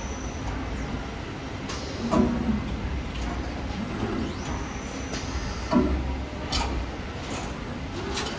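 3D wire bending machine running, its bending head swinging into new positions: a steady low motor hum with clunks and clicks about two seconds in and again around six seconds.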